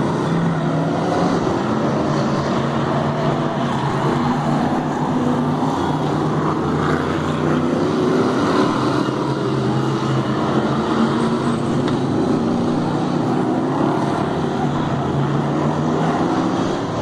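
Several winged oval-track stock cars racing: a loud, continuous drone of their engines, wavering up and down in pitch as cars pass and accelerate out of the bends.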